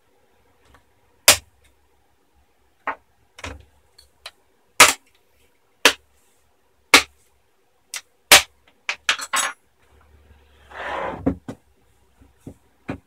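Plastic clips of a laptop screen bezel snapping loose as it is pried off with a spudger: about fifteen sharp clicks, several in quick succession, then a second-long scrape near the end as the laptop is handled.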